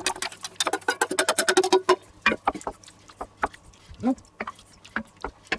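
A utensil scraping and clattering food out of a stainless steel pot into a cast iron pot, a quick run of clicks and scrapes for about two seconds, then a wooden spoon stirring thick stew with scattered knocks against the pot.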